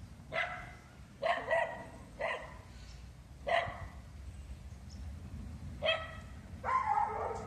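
A puppy barking in short, high yaps, about seven spread irregularly, with a slightly longer bark near the end.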